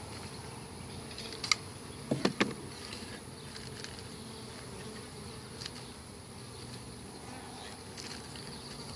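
Honey bees buzzing steadily around their colony, with a few sharp clicks or knocks about one and a half and two and a half seconds in.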